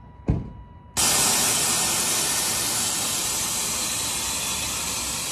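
Air Lift 3P air suspension venting air from its bags to drop the car: a loud hiss that starts suddenly about a second in and slowly fades. A short thump comes just before it.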